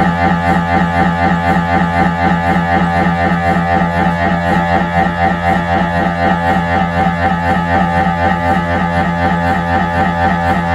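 Siemens Magnetom Avanto 1.5 T MRI scanner running a scan sequence: its gradient coils make a loud, fast, even pulsing buzz at a steady pitch.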